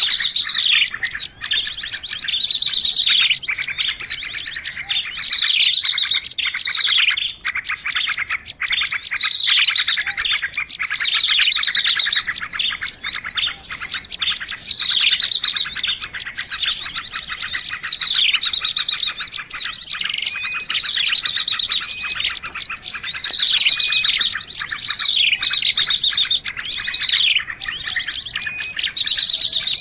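A dense chorus of small songbirds chirping, over a fast, even rattling trill, with downward-sliding high notes repeating every second or two. It is a bird-lure recording meant to call small birds in.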